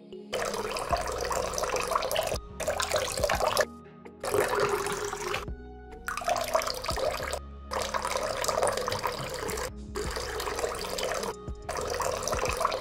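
Water pouring in a thin stream from a small metal pot onto sand, a steady trickling splash. It comes in several spells that break off abruptly into brief silences.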